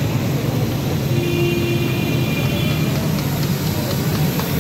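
Steady low rumble of street traffic and engines. A brief high-pitched tone sounds about a second in, and light clicks come near the end.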